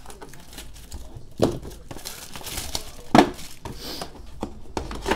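Plastic shrink wrap being cut and torn off a trading-card box, crinkling and rustling, with two louder knocks, one about a second and a half in and one about three seconds in.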